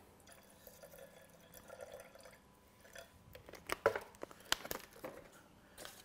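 Water trickling from a plastic bottle into a paint sprayer's metal container of paint, faint and steady for about three seconds, then a few light clicks and knocks of handling.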